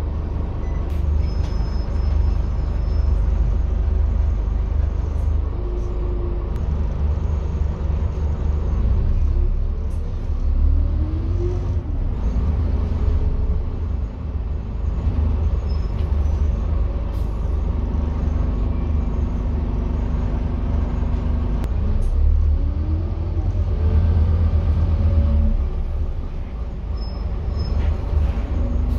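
Scania N230UD double-decker bus's five-cylinder diesel engine and drivetrain running, heard from inside on the upper deck, with a steady low rumble. A rising whine comes in three times as the bus pulls away and accelerates: once about a third of the way in and twice near the end.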